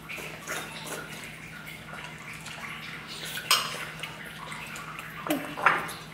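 Dishes, pots and utensils clattering during cooking, with scattered clinks and two sharper knocks, one about halfway through and one near the end.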